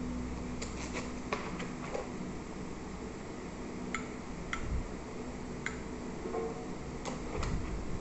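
Paper wrapping crinkling, with scattered sharp clicks and taps as the metal pieces of a door lock set are unwrapped and handled in their foam-lined box, over a steady low hum.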